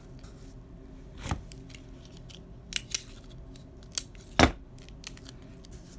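A handful of short, sharp clicks and taps from cardboard and craft tools being handled on the work surface, the loudest about four and a half seconds in.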